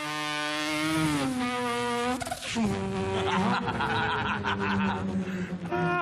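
A man imitating a car engine with his voice: a held, buzzing engine note that drops in pitch just after a second in, breaks off, then settles into a lower steady note.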